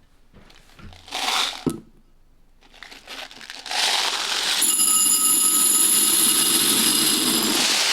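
Airsoft BBs being poured into a bowl: a steady, dense rattling hiss with the bowl ringing through it, starting about halfway in, after a short rustle about a second in.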